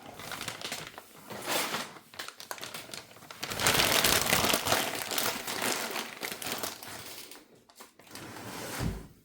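Packaging crinkling and rustling as it is handled, loudest in the middle, with a dull thump near the end.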